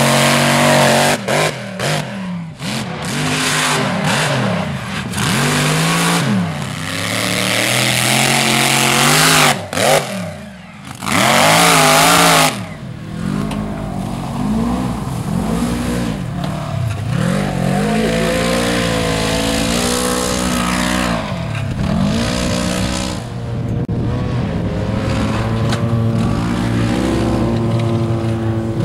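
Off-road vehicle engines revving hard in mud, their pitch climbing and dropping again and again with each burst of throttle. A big-tyred mud truck is heard near the start, then a side-by-side UTV for most of the rest.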